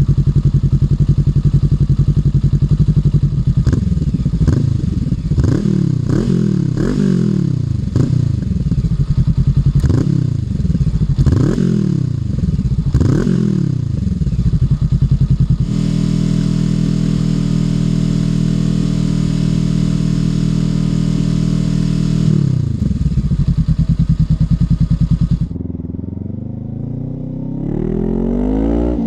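Honda NX500's parallel-twin engine through a Black Widow 230SR slip-on exhaust. It idles, is blipped in about eight quick revs, is held at a steady higher rev for about seven seconds, then drops back to idle and starts accelerating near the end.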